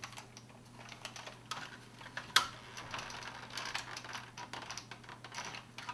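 Hard plastic parts of a 1985 Matchbox Robotech Veritech fighter toy clicking and clacking irregularly as the unscrewed fuselage is handled and worked at to pull it apart, with one sharper click about two and a half seconds in.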